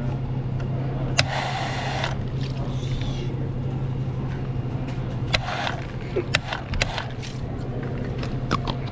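Self-serve soda fountain dispensing into a plastic sippy cup in a pour of about a second, then scattered clinks and clicks as the cup is handled, over a steady low hum.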